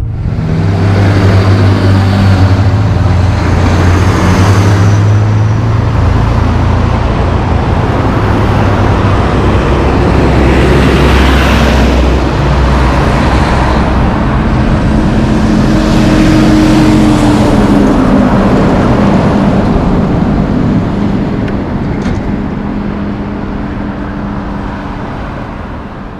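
Heavy diesel trucks and cars on a highway. A loaded log truck's diesel engine drones at low revs through the first several seconds, then a bulk feed tanker truck and cars pass by. The sound fades away near the end.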